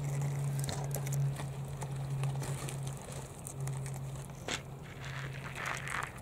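Japanese pond turtles' claws and shells scraping and clicking on gravel, in scattered light clicks with a denser rustle about five seconds in, over a steady low hum.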